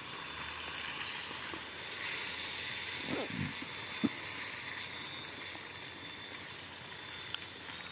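Food frying in a pan over an open wood fire: a steady low sizzle, with a couple of brief scrapes and knocks of the bamboo spatula in the pan a little past the middle.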